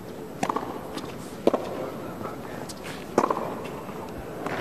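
Tennis ball struck by racquets three times in a rally, starting with the serve, each hit a sharp pop about one to two seconds apart, over a steady stadium crowd murmur. A louder wash of sound starts just at the end.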